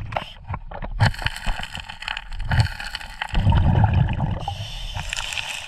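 Underwater sound of a scuba diver working a gravel riverbed: gurgling bubbles, a stronger low rush a little past the middle, and many small clicks and knocks of stones being moved.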